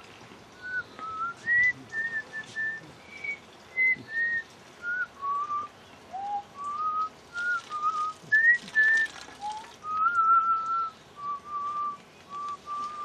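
A person whistling a slow tune: a string of clear single notes that step up and down, some held longer, about a dozen notes in all.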